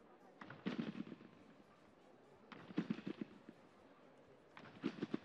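Trampoline beds taking the landings of two synchronized gymnasts. Three times, about two seconds apart, each landing and rebound gives a quick cluster of thuds and rattles.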